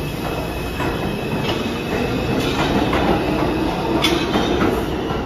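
New York City subway train on the IRT Lexington Avenue line moving through the station: a steady rumble of wheels and running gear, with a few sharp clanks along the way.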